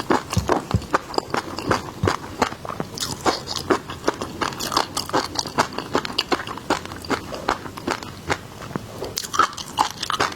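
Close-miked eating of seafood: steady chewing with many sharp, irregular crunches and crackles, several a second.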